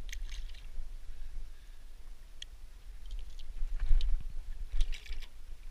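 Plastic lip-grip tool clicking and hands handling a freshly caught Murray cod, then a splash and thump about four seconds in as the fish is released over the boat's side into the water, with a few more splashy clicks just after. A steady low rumble runs underneath.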